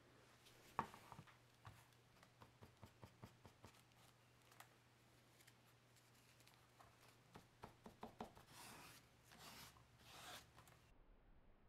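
Near silence with faint handling sounds: a light knock about a second in, scattered small clicks, then, toward the end, soft rubbing of a hand working antique finish into a leather sheath.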